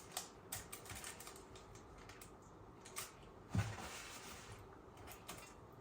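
Scattered soft clicks and light rustles of hands folding puff pastry around a spoonful of filling, with one soft knock about three and a half seconds in.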